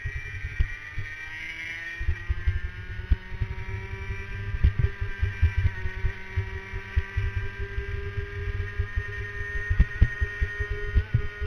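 Racing kart engine pulling hard down a straight, its pitch climbing quickly at first, then rising slowly and holding before it falls away near the end as the driver lifts off. Wind buffets the onboard microphone throughout with a low, uneven thumping.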